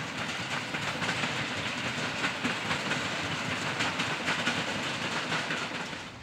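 Train passing: a steady rumble of wheels on the rails, with many clacks over the rail joints, dropping away near the end.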